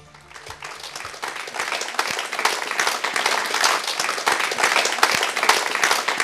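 Studio audience applauding: many people clapping, swelling over the first second or two and then holding steady.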